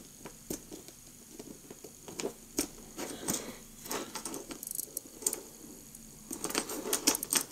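Plastic blocks of a Xiaomi fidget cube being handled and fitted together during assembly: scattered light clicks and clacks, with a quicker run of small clicks near the end.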